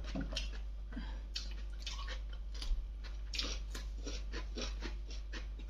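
A person chewing and biting food close to the microphone, with irregular small clicks and crunches.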